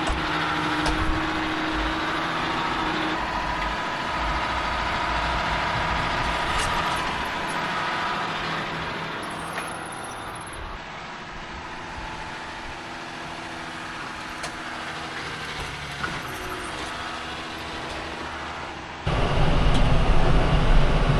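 Tractor engine running steadily during hay baling. Near the end the sound jumps suddenly louder, with a heavy low rumble.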